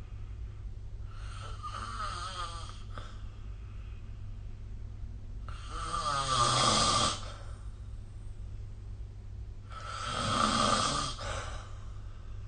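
A sleeping person snoring: three snores about four seconds apart, each lasting under two seconds, the second and third louder than the first.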